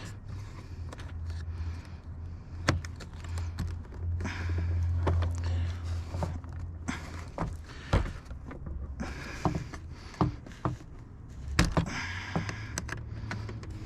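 Plastic push-clips on a 2010 Ford Escape's rear door trim panel popping loose as the panel is pried off the door: a few sharp snaps, the loudest about three seconds in, at eight seconds and near the end, with plastic scraping and rattling between them. A steady low hum runs underneath.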